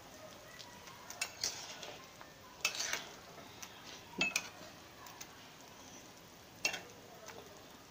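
Spoon gently stirring amla (Indian gooseberries) in a kadhai of boiling water, with several light knocks and scrapes against the pan over a faint bubbling.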